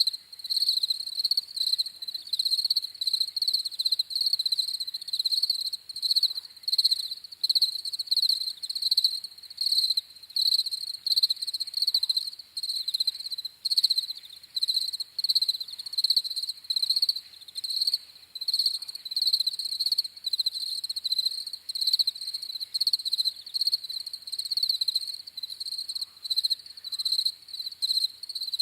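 Crickets chirping: high-pitched chirps repeating about once a second without a break.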